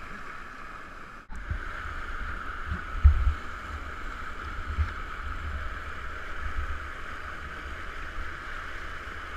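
Whitewater rapids rushing steadily, with irregular deep thumps as splashing water buffets the camera microphone, the strongest about three seconds in.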